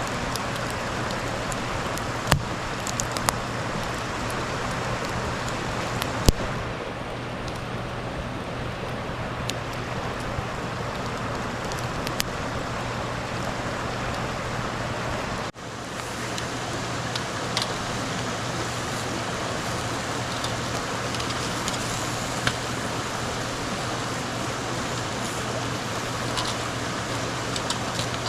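Campfire crackling with scattered sharp pops over a steady hiss, with a brief break about halfway through.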